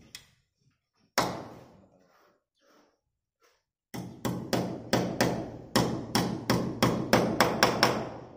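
Steel claw hammer driving a small nail at the top of an aluminium window frame: one blow about a second in, then a quick run of about fifteen ringing blows, roughly four a second, from about four seconds in.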